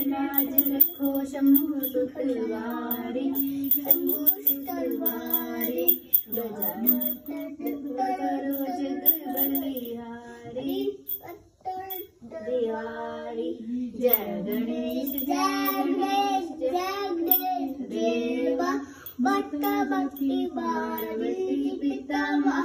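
A child singing a Hindu devotional song, phrase after phrase with short breaks between them.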